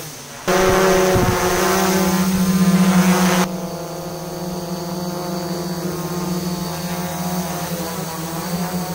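A quadcopter on a DJI F450 Flame Wheel frame hovering, its four motors and propellers giving a steady buzzing hum at one held pitch. The hum starts about half a second in, is loud at first, and turns quieter and duller about three and a half seconds in.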